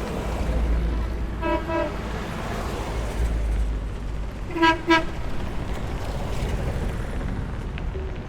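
A vintage vehicle's horn gives two quick double toots, the second pair louder, about a second and a half and five seconds in, over the low rumble of passing engines.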